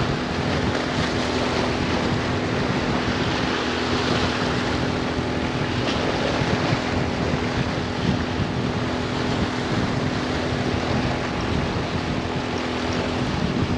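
Steady wind rushing over the microphone and moving water, with a constant low hum underneath.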